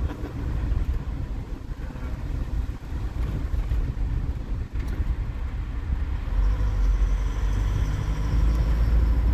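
Road noise inside the cab of a moving van or truck: a steady low rumble of engine and tyres on a patched road, which grows louder about six seconds in.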